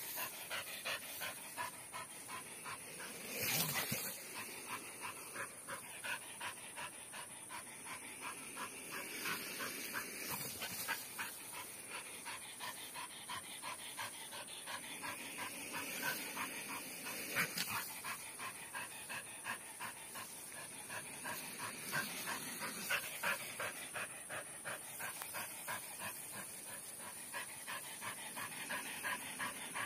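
Dog panting hard in a quick, even rhythm of short breaths, with a louder burst about three and a half seconds in.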